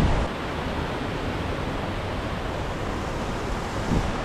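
Steady rushing of a waterfall pouring into its plunge pool, with a brief low thump near the end.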